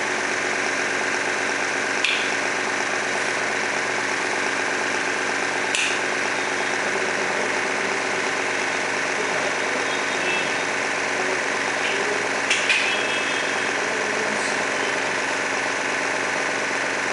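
Electric motor spinning a propeller clock's LED arm: a steady mechanical hum with several held tones, broken by a few brief clicks.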